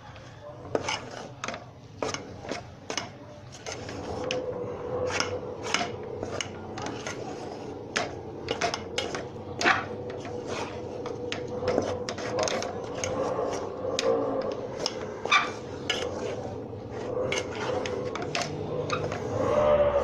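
A spoon stirring and scraping a thick flaxseed, jaggery and nut mixture in a pot, with frequent clinks and scrapes against the pot's sides, mixing the added nuts and fennel in. A steady hum comes in about four seconds in.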